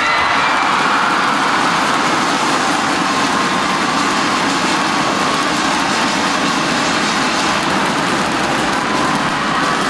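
Large arena crowd cheering and shouting steadily as a badminton match is won.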